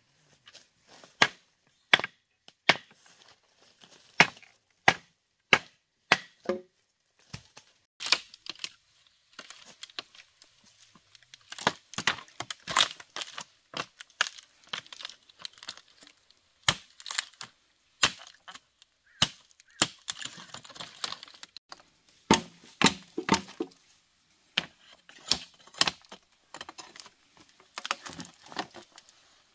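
Repeated sharp chopping strikes, evenly spaced at about three every two seconds at first. From about eight seconds in they come less regularly, with scraping and rustling between them.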